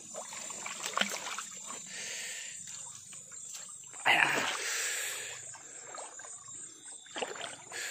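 Shallow river water splashing and swishing as a person wades and works a fishing net in it, with a louder splash about four seconds in as the net drops into the water.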